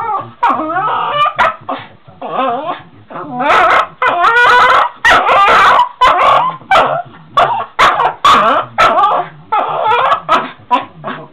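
Small shaggy dog "singing": a long run of loud, short, wavering yips and whines that slide up and down in pitch, loudest in the middle stretch.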